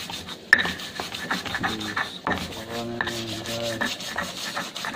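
Pestle grinding a paste in a mortar (ulekan on cobek), a repeated rasping rub with a sharp knock about half a second in.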